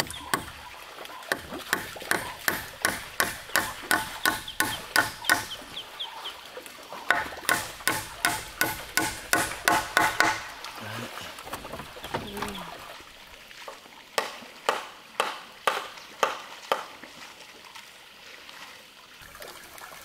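Sharp strikes in quick rhythmic runs, about three a second, then a slower handful near the end.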